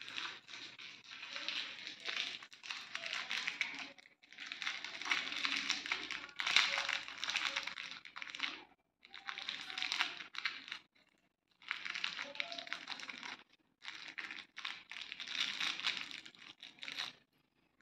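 Crinkling of a small clear plastic packet holding metal mounting clamps and screws as it is handled and picked open by hand. The sound comes in about five stretches of a few seconds each, with short pauses between them.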